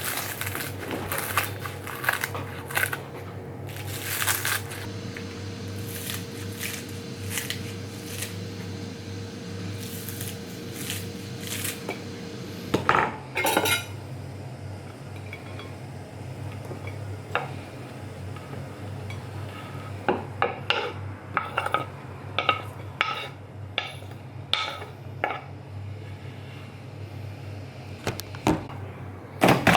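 Cooking sounds of pots, pans and utensils: irregular clinks and knocks, with a louder clatter about 13 seconds in and a busier run of knocks near the end, over a steady low hum.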